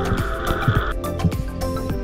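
Background music with a steady beat, and a held high note that stops about halfway through.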